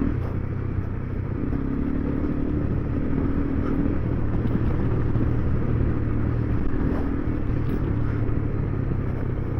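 Single-cylinder adventure motorcycle engine running steadily while riding, its pitch drifting slightly with throttle, over a continuous rush of wind and road noise.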